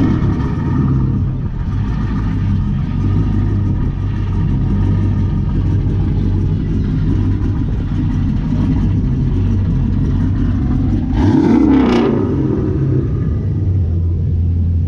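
A car engine idling steadily, blipped once in a short rev about eleven seconds in.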